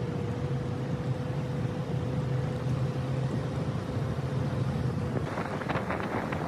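Steady engine and road noise from inside a vehicle driving on a gravel mountain road, with a low hum and a faint steady whine. About five seconds in, a run of rapid rattles and clicks starts, as the vehicle jolts over the rough surface.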